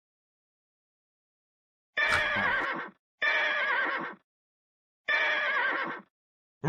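Three snores about a second apart, each lasting about a second, with a wavering pitched whine over a rasp. They come after two seconds of silence.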